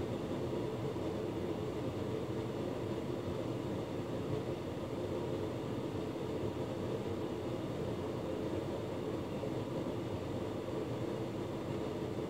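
Hotpoint Ultima S-Line tumble dryer running, a steady low hum of its motor and fan as the drum turns.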